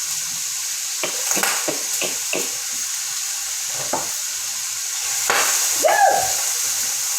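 Chopped onions sizzling in olive oil in a pan, with a utensil clicking and scraping against the pan as they are stirred. A brief sliding tone sounds about six seconds in.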